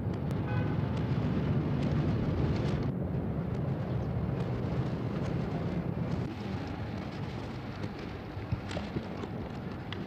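Steady low rumbling noise with a few scattered clicks.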